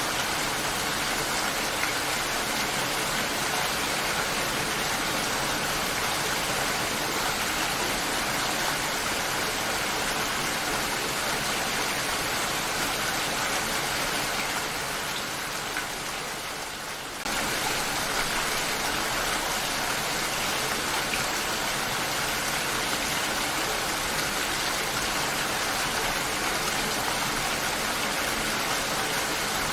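Steady, dense rainfall, an even hiss of many drops. About halfway through it fades slightly for a couple of seconds, then comes back full all at once.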